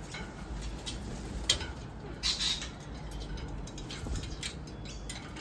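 Wild cockatoos and lorikeets feeding on bread: scattered clicks and taps of beaks and claws, with a short harsh bird call a little over two seconds in.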